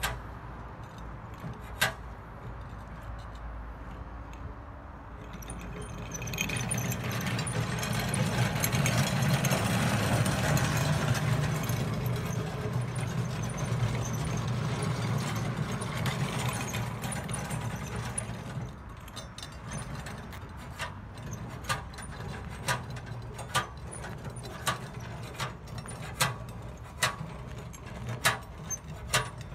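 A passing vehicle swells to a peak and fades away over about twelve seconds, above a steady low engine hum. Then comes a run of sharp clicks, one or two a second, while the hand-pushed crack-sealing applicator cart is worked along the crack.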